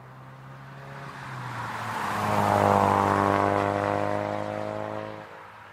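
Ford Focus RS Mk3's turbocharged 2.3-litre four-cylinder with a loud modified custom exhaust driving past: the engine note grows to its loudest about three seconds in at a steady pitch, then falls away sharply about five seconds in.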